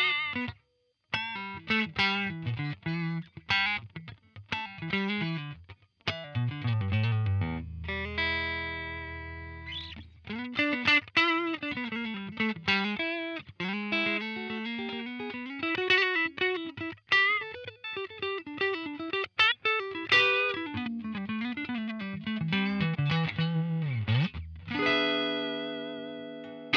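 Fender Stratocaster electric guitar played through a UAFX Dream 65 Reverb amp pedal: picked single-note lead lines with string bends, and a ringing chord held about a third of the way in and again near the end.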